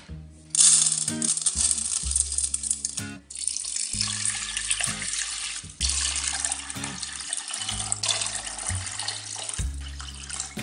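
Water pouring in a steady stream into a stainless steel pot of red lentils, splashing as it fills. The stream stops briefly about three seconds in, then runs on until near the end.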